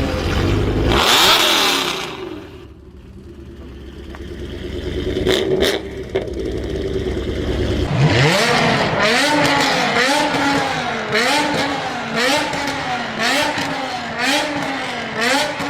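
BMW M5 E60's 5.0-litre V10 revved hard and dropping back, with a couple of sharp pops. About halfway it revs up again and then rises and falls in pitch about once a second, with crackles in the exhaust.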